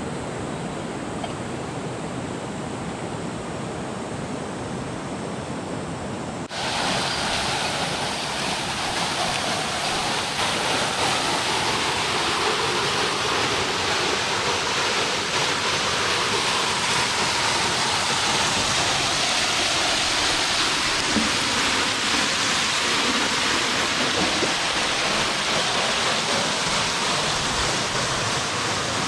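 Steady rush of a mountain stream's flowing water. About six seconds in it cuts abruptly to a louder, brighter rush, as from water falling closer by.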